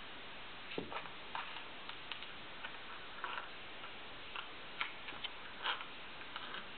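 Scattered small clicks and taps at an irregular pace, roughly one or two a second, over a steady background hiss.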